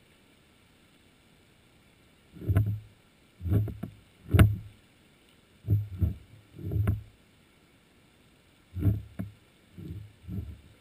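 Irregular low thumps and knocks, about nine over ten seconds, some with a sharp click on top, heard underwater through a camera housing.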